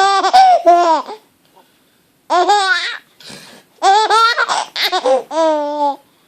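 A four-month-old baby laughing in high-pitched bouts: one that stops about a second in, a short one around two and a half seconds in, and a longer run of laughs from about four seconds in until near the end.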